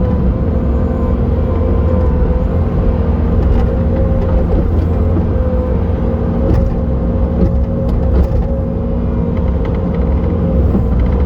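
Bobcat T870 compact track loader's diesel engine running steadily, a deep rumble with a constant whine over it, and a few light knocks.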